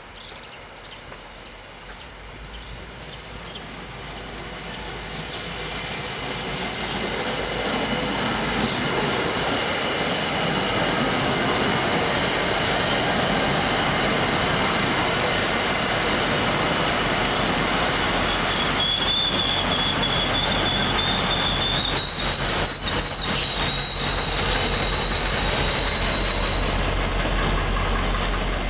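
MBTA commuter train approaching and passing close by, growing louder over the first several seconds and then holding steady as the coaches roll past. A high, steady wheel squeal is heard throughout, becoming stronger and slightly higher about two-thirds of the way through, with wheel clicks over the rail joints.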